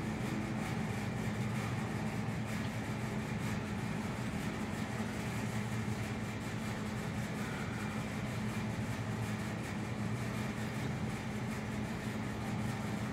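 Steady low mechanical hum, even and unchanging throughout.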